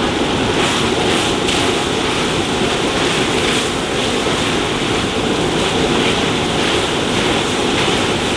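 Muscovy duck meat stir-frying in a large pan: a loud, steady sizzle.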